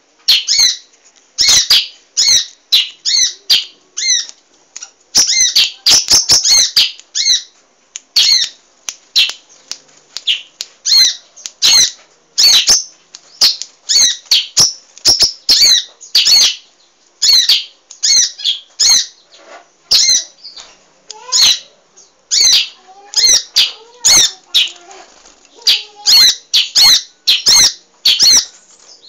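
A munia (emprit) calling busily: a continuous run of short, sharp, high chirps, mostly in quick clusters of two to four.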